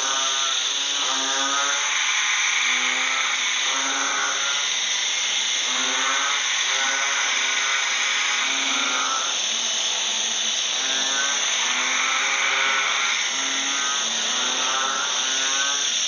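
A chorus of frogs, several calling together in rapid pulsed, grating calls that come in bout after bout about every second. Behind them runs a steady high-pitched drone of insects.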